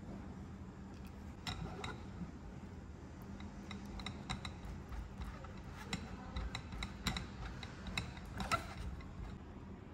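Silicone spatula scraping batter through a fine stainless-steel mesh sieve over a glass bowl: soft scratchy scraping with scattered light clicks, over a faint steady hum.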